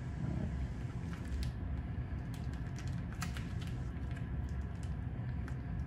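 Foil packet of CV joint grease crinkling and crackling as it is squeezed into a CV axle joint: scattered small clicks over a steady low hum.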